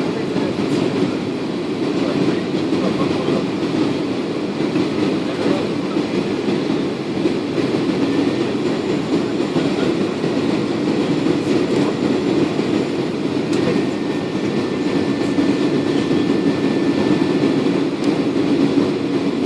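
Steady airliner cabin noise: the engines and rushing air make an even, continuous rumble, heard from inside the passenger cabin.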